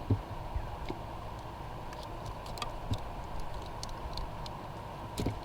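Scattered faint clicks and a few soft knocks from hand work on a rubber heater hose and its fitting, over a steady low rumble and a faint hum.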